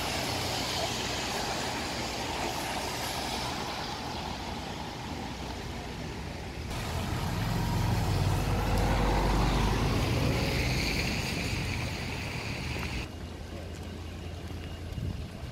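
Road traffic on a rain-wet street: cars pass with a hiss of tyres on wet tarmac. One passes close and loud about halfway through, and the traffic is quieter near the end.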